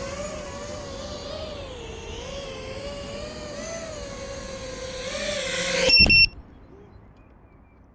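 FPV quadcopter's motors whining, the pitch wavering up and down with the throttle. It grows louder, then cuts off abruptly about six seconds in with a sharp click and brief high beeps.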